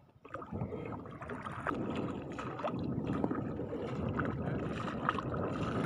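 Shallow seawater sloshing and splashing around legs and feet wading through it.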